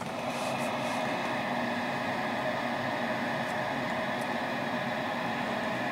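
Cobra 1000 GTL CB radio receiver giving a steady hiss of static with a faint hum in it, squelch open on an empty channel with no station answering.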